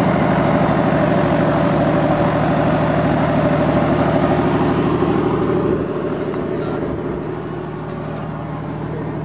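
Robinson R44 helicopter's piston engine and rotor running steadily on the ground. About six seconds in, the sound drops in level and stays lower.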